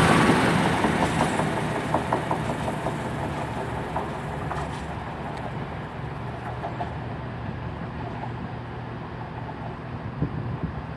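Class 222 Meridian diesel multiple unit pulling away and fading into the distance, its wheels clicking over the rail joints as it goes. A steady low diesel hum continues underneath.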